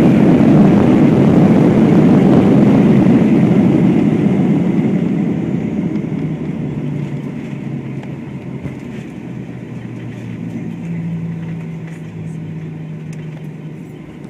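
Boeing 737-700 heard from inside the cabin on its landing rollout: a loud rushing noise of engines and airflow that dies away over several seconds as the jet slows, leaving a steady low engine hum.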